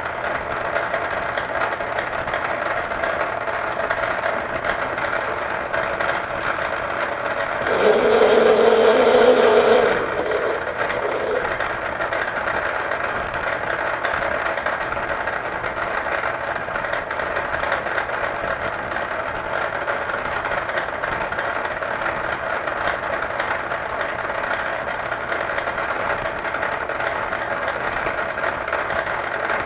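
Metal lathe running steadily in gear while a thread is single-point cut in a series of shallow passes. About eight seconds in, a louder stretch of about two seconds brings in a low tone and a high hiss, then the steady running resumes.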